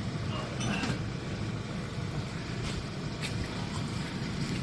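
A motor vehicle's engine running with a steady low rumble as the vehicle is moved forward.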